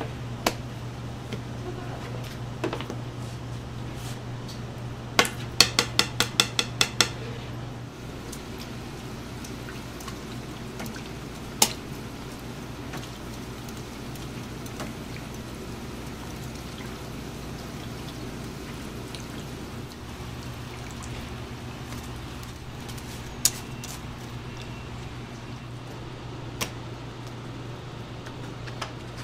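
Fish cake stall kitchen sounds: a steady low hum, a quick run of about eight sharp metal taps a few seconds in, and scattered single clicks of utensils. Under them is a faint hiss of fish cakes frying in hot oil.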